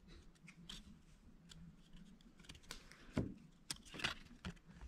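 Decades-old 1993 Topps basketball cards, stuck together, being peeled apart and flipped by hand: faint papery rustles and small clicks, with a few sharper snaps after about three seconds.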